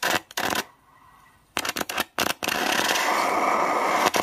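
Small acetylene flame from a homemade calcium carbide gas generator, fed through an IV-set tube, crackling and popping against a drink can. About halfway through a steady hiss starts as the flame burns into the can.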